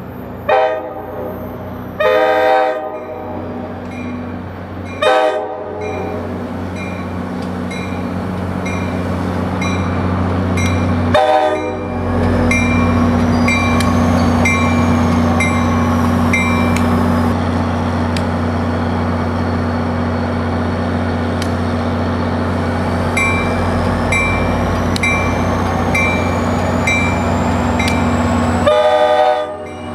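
NJ Transit diesel locomotive approaching with its engine droning steadily, growing louder from about twelve seconds in, and sounding its horn in several separate blasts, the last one long near the end. A grade-crossing bell dings steadily underneath.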